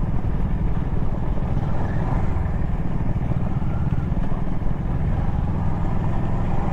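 Motorcycle engine running steadily, with a dense low rumble.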